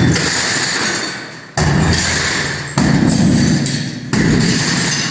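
Electric demolition hammer chiseling brick and masonry out of a wall, run in bursts of a second or so that restart sharply three times.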